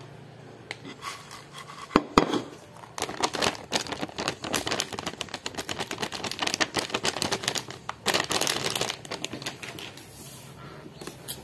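Lay's potato chip bag crinkling and crackling as it is handled and pulled at, a dense irregular run of rustles from about three seconds in, after a couple of sharp clicks.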